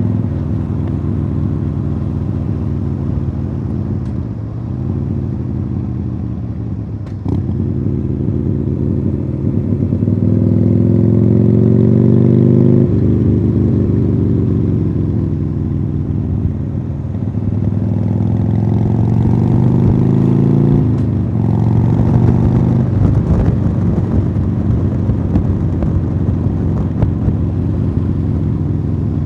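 2015 Harley-Davidson Sportster Iron 883's air-cooled V-twin running through Khrome Werks Tapered 3 exhausts, accelerating with its note climbing. The pitch drops suddenly at two upshifts, about a third of the way in and again about two-thirds in, then settles into a steadier cruise.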